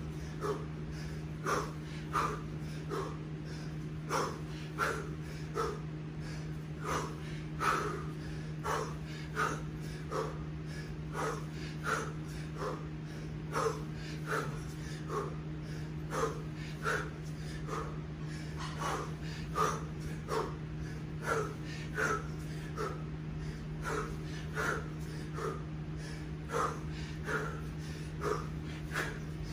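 A kettlebell lifter's hard, rhythmic breathing under the sustained effort of 20 kg snatches: short, forceful exhalations about three every two seconds, over a steady low hum.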